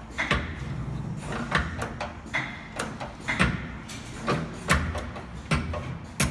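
Nicemach 3D-R70 CNC 3D wire-bending machine feeding and bending 6 mm wire: a steady motor hum under an irregular series of sharp clacks and knocks as the bending head works.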